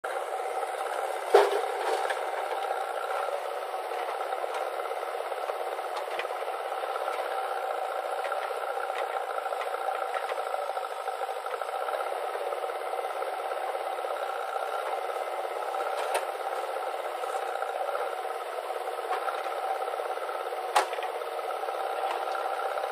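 Diesel machinery running steadily: the engines of a JCB 3DX backhoe loader and an Eicher tractor. The sound is thin, with no low rumble, and two sharp knocks come about a second and a half in and near the end.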